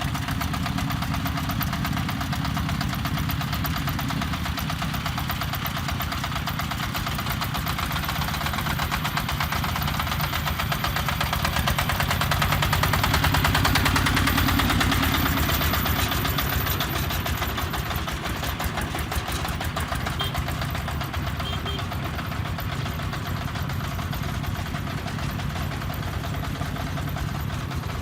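Diesel engine of a self-loading concrete mixer running with a steady knocking beat; it grows louder about twelve seconds in, as if working harder, and eases back a few seconds later.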